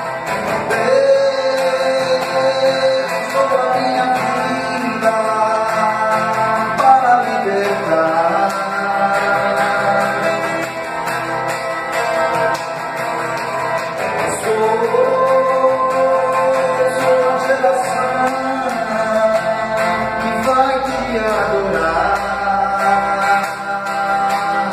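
Electric guitar played through an amplifier in a gospel song, with long held notes that slide up and down in pitch.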